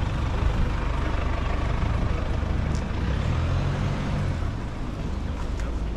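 City street traffic: a steady low rumble of vehicle engines and tyres on wet pavement, with a car passing close by at the start. The rumble eases slightly after about four and a half seconds.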